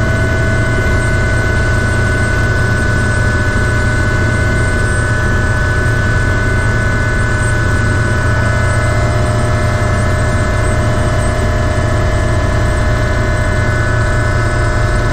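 Ultrasport 555 turbine helicopter heard from inside the cockpit in flight: a steady turbine whine over a heavy low rumble. One lower whine dips slightly in pitch about halfway through and comes back up.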